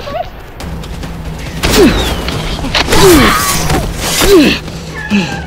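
A scuffle with a toy sword: three loud whacks about a second apart, each with a short falling grunt, over a low steady music bed.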